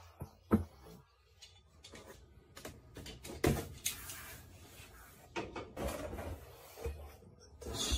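Scattered clicks and knocks of hands working on the plastic and metal parts of an HP all-in-one PC during disassembly, with a sharp knock about half a second in and smaller ones a few seconds later.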